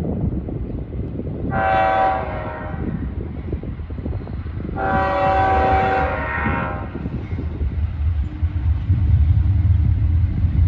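Diesel freight locomotive's multi-chime air horn sounding two blasts, the first about a second and a half long and the second about two seconds, the start of the long-long-short-long signal for a grade crossing. Under it the low rumble of the approaching train grows louder toward the end.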